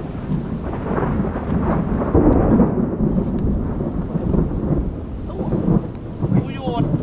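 Thunder rumbling, swelling to its loudest about two seconds in and then slowly fading.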